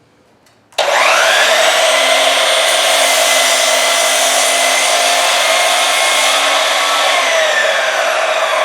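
Power miter saw switched on, its motor and blade starting abruptly about a second in and running steadily at full speed, for cutting 2x4 table legs.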